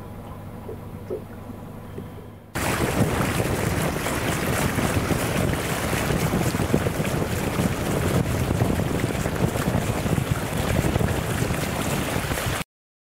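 A powerboat's engine hums steadily with a low, even drone. About two and a half seconds in, this gives way abruptly to loud rushing and splashing of water along the hull at speed, with wind buffeting the microphone. The sound cuts off suddenly near the end.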